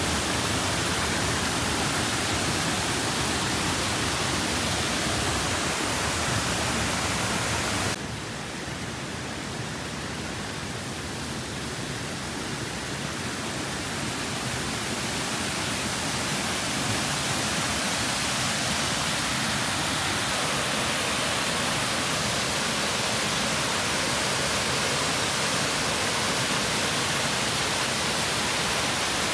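Steady rushing of a waterfall and the stream below it. About eight seconds in it drops suddenly to a softer, duller flow, then grows gradually louder again.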